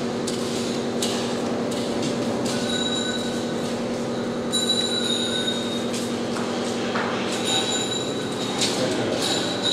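A steady mechanical hum with short, high-pitched squeals coming and going over it from a few seconds in.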